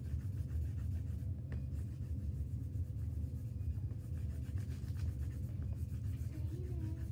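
Pens scratching and rubbing on paper as a drawing is coloured in by hand, over a steady low rumble.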